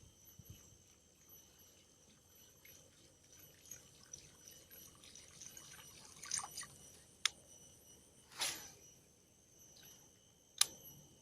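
Insects chirring steadily in the background, with a few sharp clicks and a couple of short rushing, splashy noises.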